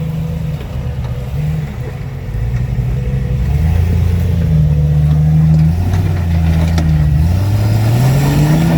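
Engine of a built off-road rig working under load while rock crawling. It grows louder a few seconds in, and the revs climb steadily near the end.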